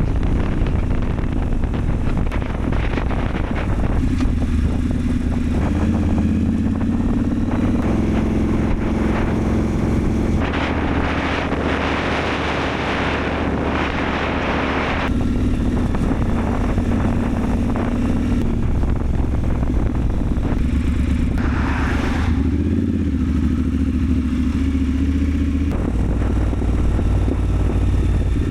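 Triumph Scrambler 1200 XE's parallel-twin engine running under way, heard onboard, its note stepping up and down with changes of speed. A broad rush of wind swells for about five seconds midway and again briefly later.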